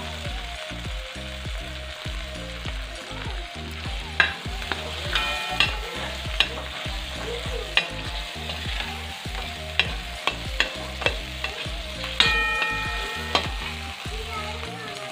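Green peas and masala sizzling in a steel kadai as a steel spatula stirs and scrapes the pan. From about four seconds in come sharp clinks of the spatula on the metal, two of them ringing on briefly.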